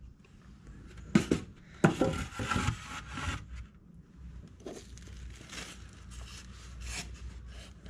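Foam packaging box and papers being handled: two sharp knocks, a little after a second and near two seconds in, then a stretch of scraping and crinkling, then softer rustling.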